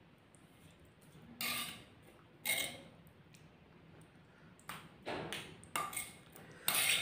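Metal spoon scraping and clinking against a stone mortar (cobek) as thick chili sambal is scooped out and spooned onto rice, about six short strokes spread over the seconds.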